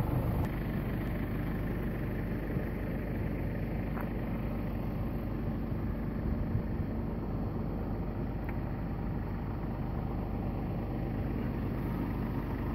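Steady engine and road noise of a vehicle being driven, heard from on board.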